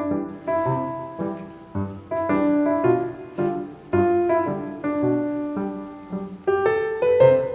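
Background music: a gentle piano melody of single struck notes and chords, each decaying before the next.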